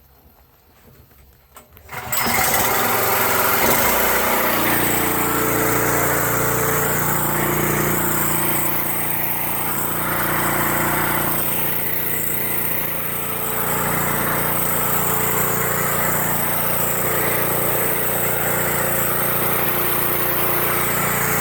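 Pressure washer's small engine comes on suddenly about two seconds in and runs steadily under load.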